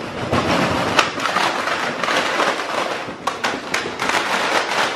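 Packaged soft-plastic fishing baits poured out of a cardboard box, a continuous crackling clatter of plastic packets landing on a concrete floor, with a sharper click about a second in.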